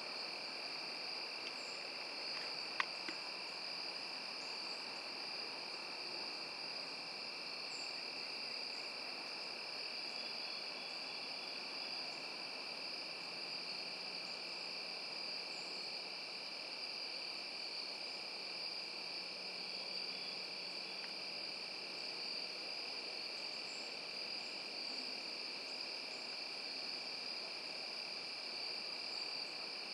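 Steady insect chorus, crickets trilling without a break at two high, constant pitches, with a couple of faint clicks about three seconds in.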